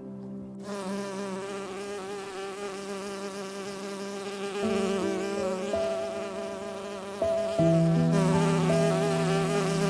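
An insect buzzing in a steady, wavering drone, with sustained low music notes coming in about halfway through and swelling louder near the end.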